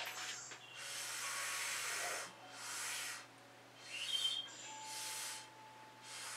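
Four puffs of breath blown onto wet fluid acrylic paint to push it across the canvas. The first is the longest, and the others are shorter.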